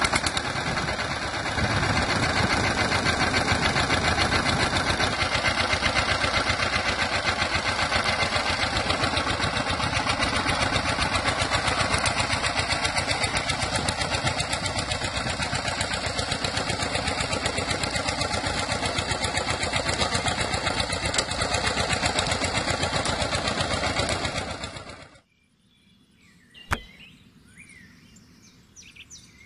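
Small motor of a miniature DIY model tractor running steadily with a rapid rattling buzz as the toy drives along. It cuts off suddenly about 25 seconds in, followed by a single light click.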